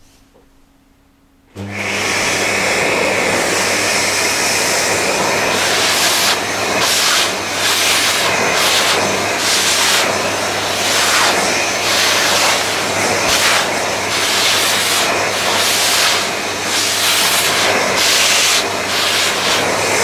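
Vax C89MAB multicyclonic cylinder vacuum cleaner switching on about a second and a half in and then running steadily, a motor hum under a loud rushing hiss. The hiss swells and dips again and again as the upholstery tool is worked over a fabric cushion.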